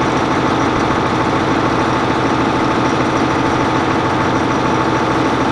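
Tractor engine idling steadily, an even running drone with no change in speed.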